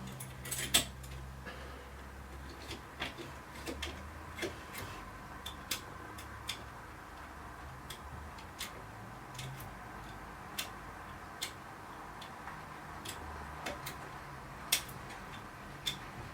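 Lock picks working the levers inside an ERA Fortress lever mortice sashlock: faint, irregular sharp clicks, about one or two a second.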